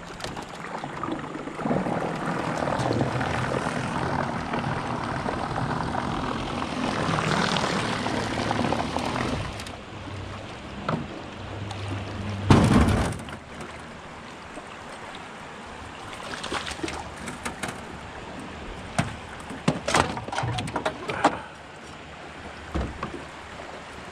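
A small boat motor runs steadily with water rushing around the hull for the first nine seconds or so. About halfway through there is one loud thump, then a scatter of light knocks and clicks.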